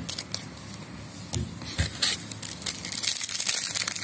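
Crinkling and rustling of trading-card booster packs and cards being handled, with light clicks, growing louder about two seconds in.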